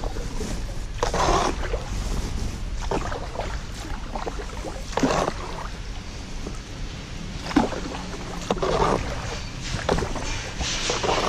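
Canoe paddle dipping and pulling through river water, splashing and dripping in irregular strokes every second or two, over a steady low rumble.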